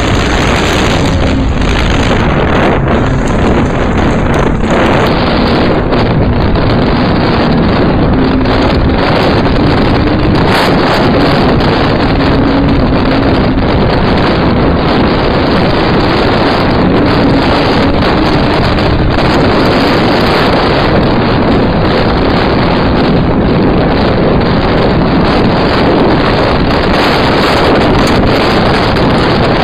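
Sprint car engine heard from on board while racing on a dirt track, running hard with its pitch wavering up and down, under heavy wind buffeting on the microphone. Loud and constant throughout.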